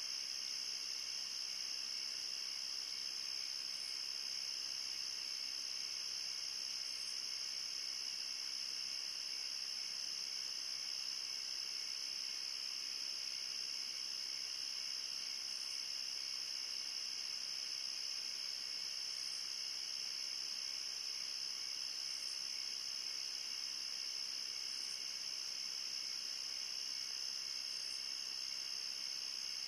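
Steady late-summer night chorus of crickets and other insects, a continuous high trill that never lets up, with faint short chirps above it every few seconds.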